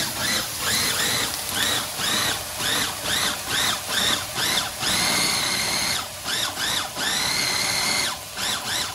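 Small electric mini food processor pulsed to mash canned pinto beans and garlic: its motor whines up and down in short pulses about twice a second, then is held on for about a second at a time, twice, near the end.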